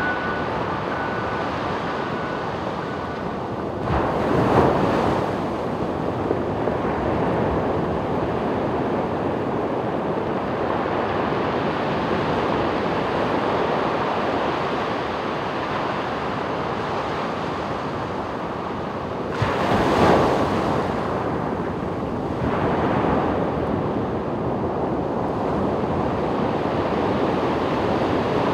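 Ocean surf washing onto a beach, a steady rush of breaking water with two louder waves crashing, one about four seconds in and one about twenty seconds in.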